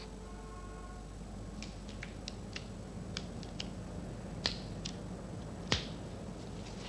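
A series of about ten light, sharp clicks and taps, irregularly spaced, as a white folding cane's sections are handled and straightened.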